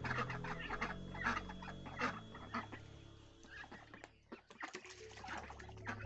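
Domestic hen clucking in a quick run of short notes, over soft background music that fades out past the middle.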